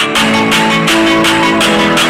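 Music with a steady beat playing through a Govo GoSurround 300 Bluetooth soundbar at full volume, picked up by a microphone set beside the speaker. A louder, fuller section with more bass comes in right at the start.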